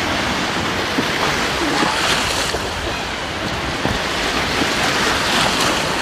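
Small sea waves breaking and foamy surf washing through shallow water, a steady rushing hiss that swells and eases, with the sea running high.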